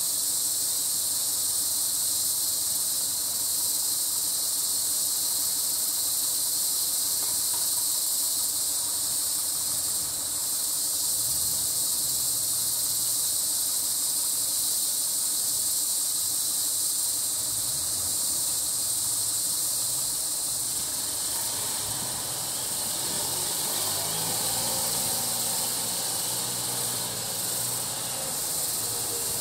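Steady, high-pitched drone of an insect chorus in tropical vegetation. Faint lower tones join in during the last third.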